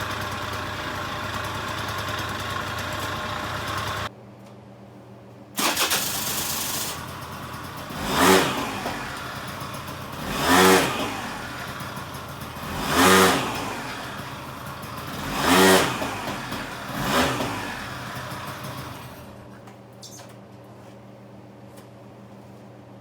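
Suzuki Address 110 two-stroke scooter engine running again after its carburettor was stripped down: it runs steadily, breaks off briefly about four seconds in, then is revved up and down five times, roughly every two and a half seconds, before dying away near the end.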